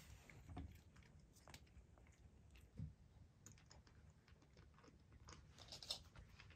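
Near silence: quiet room tone with faint scattered clicks and a few soft taps.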